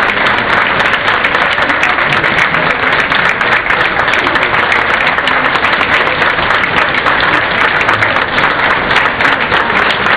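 Large crowd applauding, a dense, steady clapping that holds at the same level without a break.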